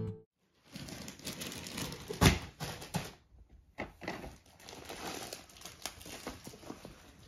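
Paper crinkling and rustling from a brown paper bag and gift wrap, with scattered soft taps and one sharper knock about two seconds in.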